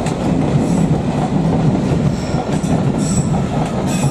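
London Underground S7 stock train running into the platform with a steady rumble of wheels on the rails. Short high-pitched squeals come in from about two seconds in as it slows to stop.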